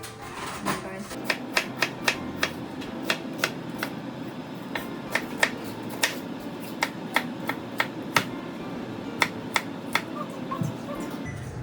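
A run of sharp, irregular clicks or taps, about two or three a second, over soft background music.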